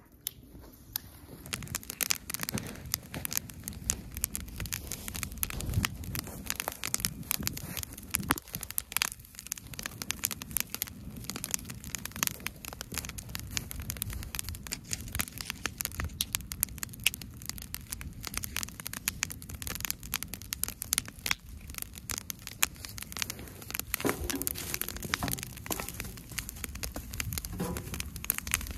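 Newly lit wood fire catching in a metal fire ring, crackling with dense, irregular snaps and pops.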